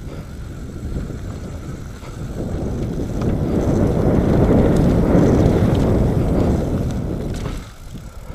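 Wind rushing over the camera's microphone, mixed with the tyres of a Nukeproof Mega 275 enduro mountain bike rolling fast over a dirt trail. It grows louder about three seconds in and drops away briefly near the end.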